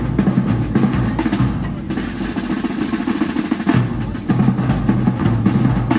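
Parade drumline playing: a rapid snare-drum cadence over bass drums.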